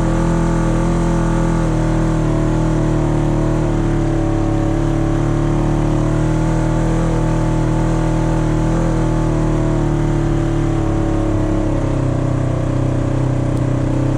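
Polaris RZR 900 side-by-side engine running at a steady speed, its note shifting about twelve seconds in.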